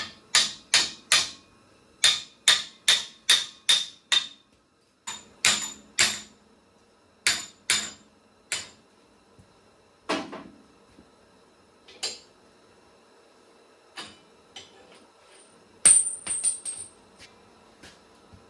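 Hammer striking steel on a tractor's three-point hitch: quick runs of four to six blows, then single knocks about every two seconds, and near the end a short clatter with a high metallic ring.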